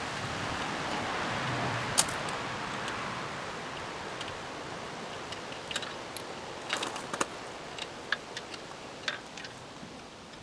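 Wind noise on the microphone, easing off after the first few seconds, with scattered light clicks and clinks, a few close together near the middle.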